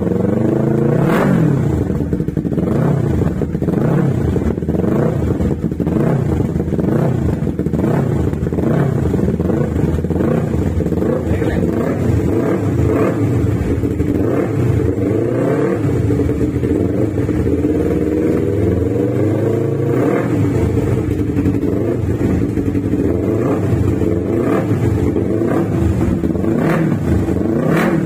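Yamaha R3's parallel-twin engine running through a newly fitted Akrapovic full-system exhaust, idling with repeated throttle blips, the revs rising and falling again and again. The revs are kept off the top end while the new system is fresh.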